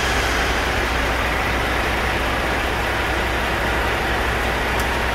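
Scania R450 truck's 13-litre inline-six diesel engine idling steadily.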